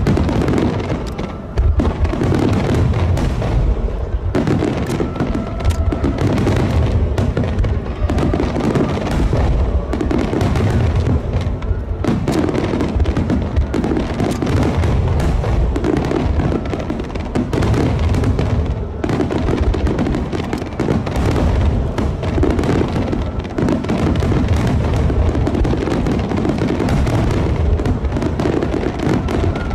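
Aerial fireworks bursting in a dense, continuous barrage of booms and crackles, with hardly a pause between shells.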